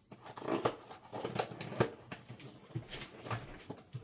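Plastic packet of panko breadcrumbs being opened, its wrapper crinkling and crackling irregularly.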